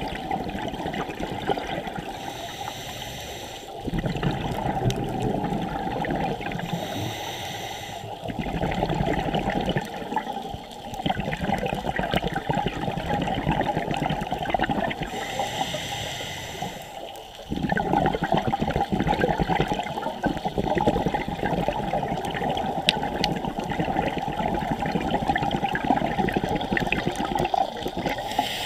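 Scuba diver's regulator breathing, heard underwater: long stretches of bubbling from exhaled air, broken every several seconds by a short hiss of inhalation through the regulator.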